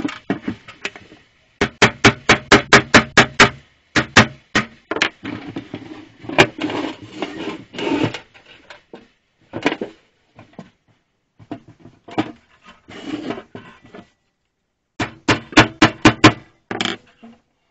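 Rusty sheet-metal toolbox being handled and knocked against a wooden block: runs of rapid sharp knocks, several a second, about two seconds in and again near the end, with scraping and rattling in between.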